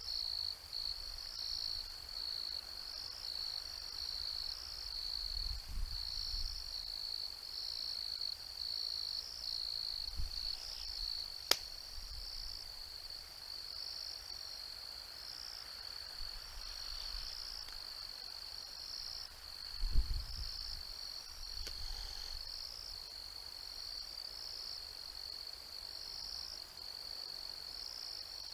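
Night insect chorus: a steady high trill with a regular pulsing pattern. A few low thumps break through, the loudest about two-thirds of the way in, and there is one sharp click near the middle.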